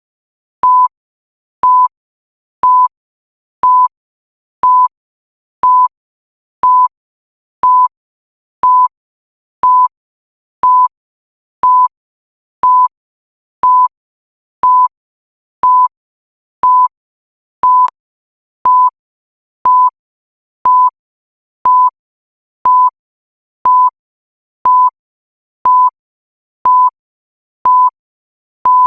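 Digital countdown timer beeping once a second: a short, high electronic beep at one steady pitch, with a faint tick between the beeps.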